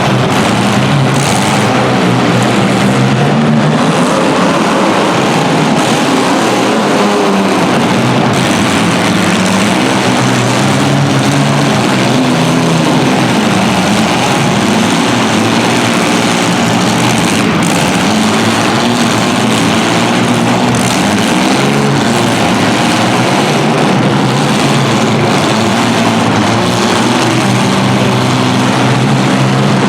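Several compact car engines running hard together, with pitches wavering as they rev up and back off.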